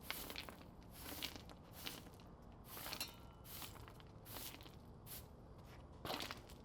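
Broom sweeping small rocks across concrete in short, quick strokes, about nine of them, each a brief gritty scrape.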